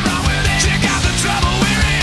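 Loud rock music with a driving drum beat and distorted guitars.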